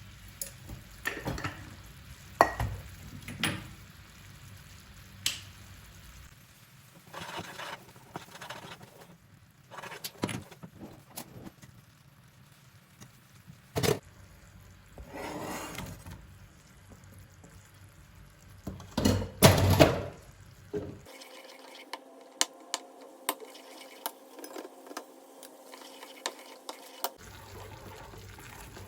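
Kitchen clatter: scattered clinks and knocks of pots, pans and utensils being handled, with a louder cluster of clanks about two-thirds of the way through.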